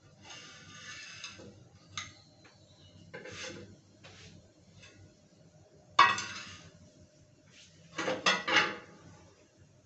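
Metal kitchen utensils and pots clinking and clattering in a few separate knocks, the loudest one about six seconds in and a quick cluster near the end.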